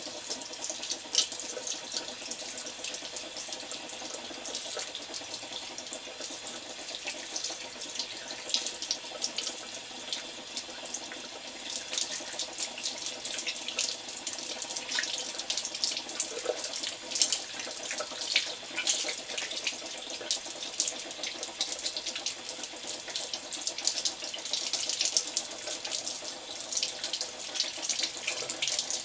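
Tap water running into a ceramic washbasin while hands are rubbed and rinsed under the stream: a steady splashing with many small sharp spatters as the water breaks over the moving hands.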